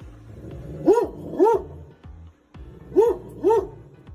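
A dog barking four times, in two quick pairs about two seconds apart.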